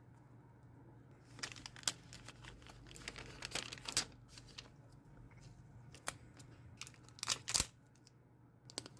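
Paper being handled, crinkling and rustling in irregular crackly bursts from about a second and a half in. It eases off midway, then comes back in two louder bursts near the end, over a faint steady low hum.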